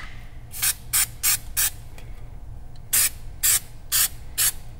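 Aerosol can of 3M rubberized undercoating sprayed in short hissing bursts: four quick squirts, a pause of about a second, then four more.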